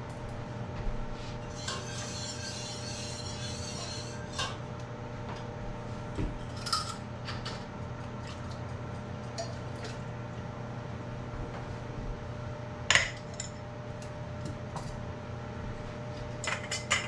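Kitchen utensils clinking and clattering against metal pots and glass canning jars, in scattered knocks, the sharpest about thirteen seconds in and several more near the end. A couple of seconds of hissing noise come early, over a steady low hum.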